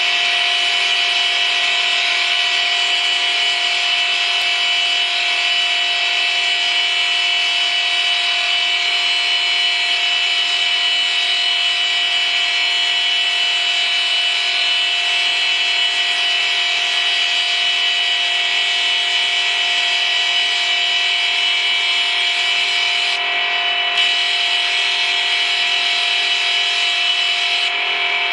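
Stone profiling machine's cutting head grinding a dark stone ball: a steady grinding hiss with a constant high whine from the machine.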